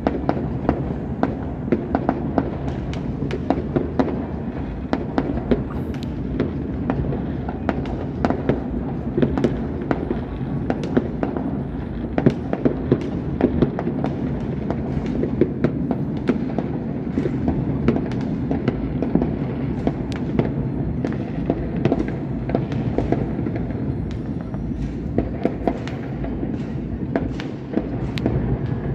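Many fireworks going off across a city at once: a dense, unbroken string of bangs and pops, several a second, over a steady low rumble.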